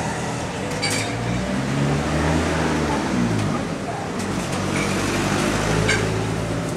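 Noodles stir-frying in a wok: a steady frying hiss, with the metal spatula clinking against the wok twice, about a second in and near the end, over the low engine hum of passing motor traffic.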